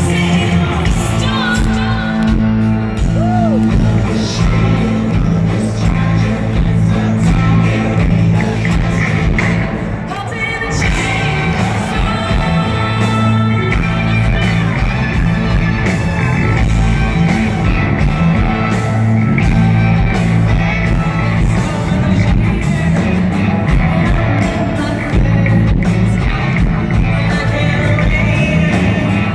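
Live country-rock band playing loud and amplified, with electric guitars, bass and drums under a woman's lead vocal, echoing in a large arena.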